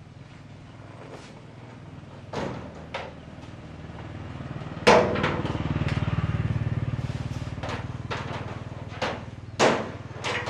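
Scattered sharp knocks and clanks, the loudest about five seconds in, from welding gear and cables being handled against a truck's steel cargo bed. A low drone swells through the middle and fades away.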